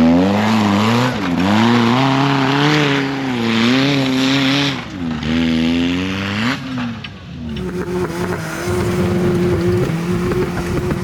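Off-road vehicle engine revving up and down several times, its pitch rising and falling. About seven seconds in the sound changes abruptly to an engine running at a steady speed with a rough, rattling noise under it.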